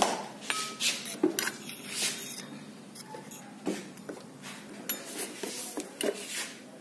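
Metal spoon stirring a ground spice mix in a stainless steel bowl, with irregular clinks and scrapes of spoon against steel.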